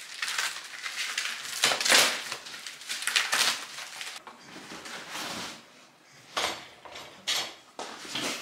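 Plastic wrapping rustling and crinkling as it is pulled off metal table legs, with light clinks of the metal parts knocking together. The rustling is busiest in the first few seconds, then thins out to a few short sharp sounds.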